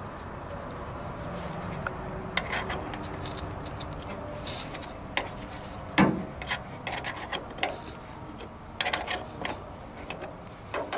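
Hands working on wiring and parts: rubbing and scraping with scattered small clicks, and one sharper knock about six seconds in.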